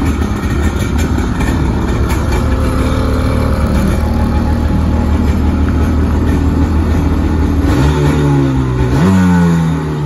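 2003 Polaris Freedom 700cc two-stroke jet ski engine running just after starting, idling steadily. About eight seconds in it is revved up, climbing higher about a second later, then drops back toward idle at the end.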